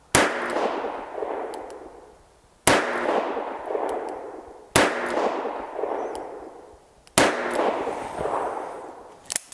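Four shots from a Taurus 942 .22 WMR revolver fired double action, about two to two and a half seconds apart, each sharp report followed by a long echo that dies away over a couple of seconds.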